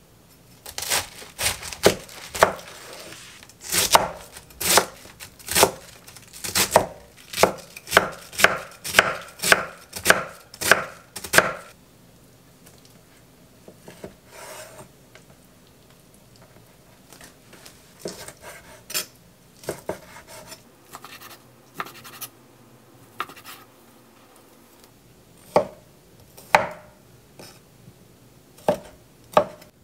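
Vegetable knife chopping on an end-grain wooden cutting board. For about the first twelve seconds it shreds cabbage in a steady run of sharp knocks, about two a second. After that come sparser, softer cuts through bacon and shrimp.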